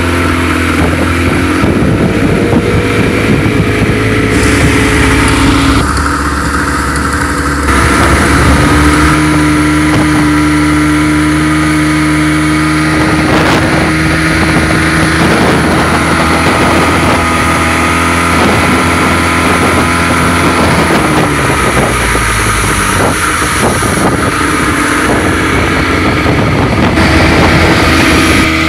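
Yamaha outboard motor running at speed, its note shifting to a new pitch a few times, with water rushing in the wake.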